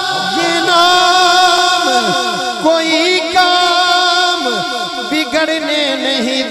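Naat singing: a male voice draws out a wordless, ornamented passage full of quick falling runs, over a steady held backing drone.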